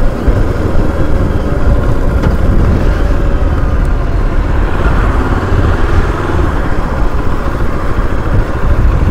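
Motorcycle engine running while riding at low speed, with heavy wind noise rumbling on the microphone.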